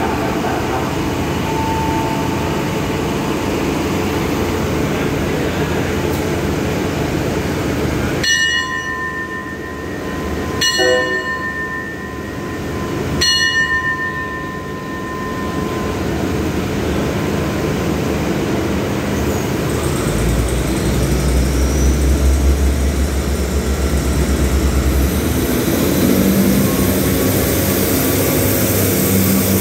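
Station hand bell struck three times, each strike ringing on and fading, the departure signal for the train. Then a diesel train's engine rumbles louder as it pulls out along the platform.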